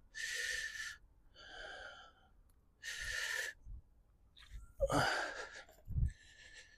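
A man breathing hard close to the microphone: four noisy breaths, each lasting about half a second to a second, spaced about a second apart, the last with a rising voiced edge like a grunt. A short dull thump follows about six seconds in.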